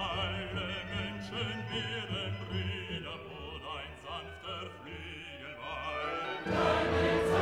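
Background music: a slow orchestral piece with a wavering, vibrato singing voice over sustained low notes. About six and a half seconds in it swells into a louder, fuller passage.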